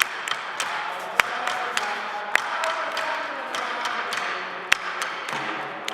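Hand drums playing a rhythm of sharp slaps and strikes, about three a second, with heavier accented hits about a second apart.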